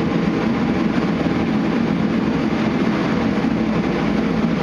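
Shop heater running with a steady, even drone and no changes.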